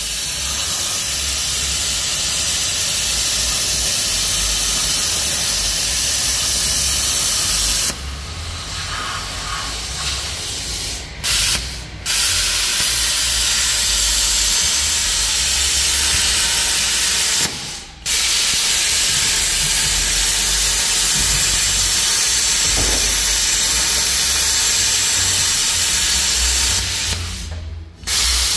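Electric welding arc crackling and hissing steadily on the steel frame. It stops briefly a few times between beads, with a quieter stretch about a third of the way in.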